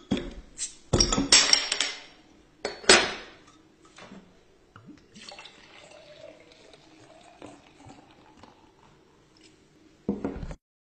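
A beer bottle opened with a bottle opener: metal clicks and two loud bursts as the cap comes off, then beer poured from the bottle into a stemmed glass, a quieter steady pouring for several seconds. A short loud knock near the end.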